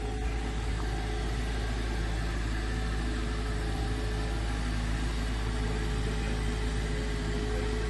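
2022 Jeep Wrangler Rubicon 4xe running at a slow crawl through a rutted sand trench: a steady low rumble with a constant hum, without revving.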